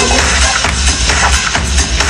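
Electronic dance music with a steady, heavy bass beat.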